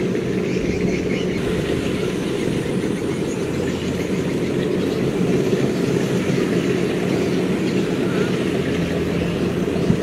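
Kubota DC93 rice combine harvester running steadily while cutting and threshing standing rice: a continuous diesel engine and machinery drone.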